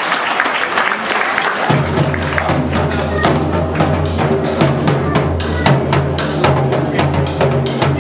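Bombo legüero, a large double-headed folk drum, struck rapidly with sticks in a fast rhythm. Applause fills the first second or so, and about two seconds in a music track with a steady bass line comes in under the drumming.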